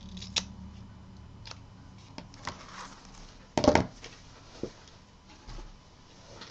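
Scissors snipping a length of lace trim: a few short, sharp snips and handling clicks, the loudest a quick cluster of strokes a little past halfway.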